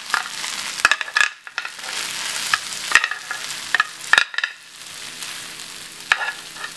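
A metal spoon scraping and knocking against a hot frying pan as fried rice is scooped out, several sharp clinks over a soft sizzling hiss from the rice still in the pan.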